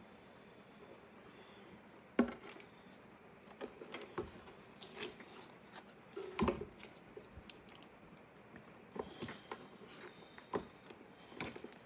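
Blue painter's tape being peeled off a mandolin body in short strips, with faint rips and crinkles and light knocks from handling the instrument. A sharp knock about two seconds in and another about six and a half seconds in are the loudest sounds.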